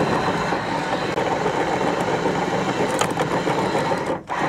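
Electric anchor windlass running steadily on the bow, stopping abruptly near the end.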